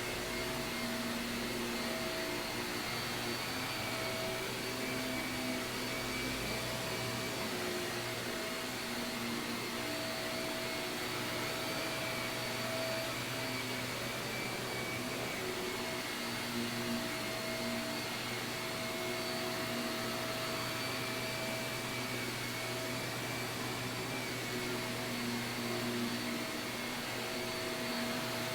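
Shark vacuum cleaner running steadily on carpet, a continuous motor whine and airflow rush with no starts or stops.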